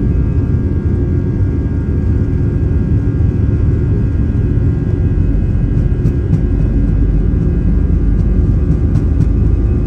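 Airbus A320 on its takeoff roll, heard from inside the cabin over the wing: the jet engines make a loud, steady rumble with a constant whine of several tones above it. A few faint knocks come in the second half.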